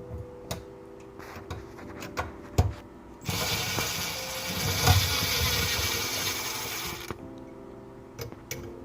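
A power drill running for about four seconds, starting about three seconds in, backing out a screw on an old bathroom faucet, with clicks and knocks of tool handling before and after. Faint background music underneath.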